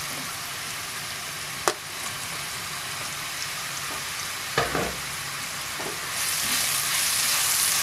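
Sliced mushrooms sizzling in hot coconut oil in a non-stick frying pan, with a sharp knock about two seconds in and another near five seconds. About six seconds in a wooden spatula starts stirring them, and the sizzle grows louder.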